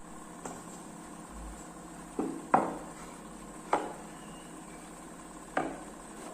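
Four sharp clacks of hard objects being knocked or set down, the first two close together and the second the loudest, over a faint steady hiss.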